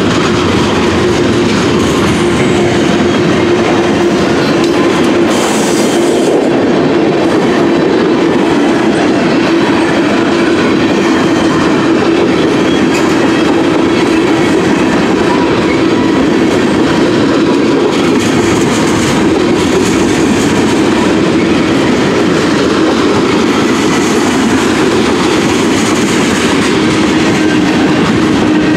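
Freight cars of a mixed manifest train rolling past at close range. Steel wheels run on the rail with a steady loud rumble and a rhythmic clickety-clack over the rail joints.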